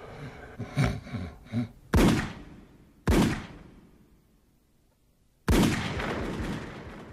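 Three handgun shots, the first two about a second apart and the third after a pause of over two seconds, each dying away in a short reverberant tail. A few faint knocks come before the first shot.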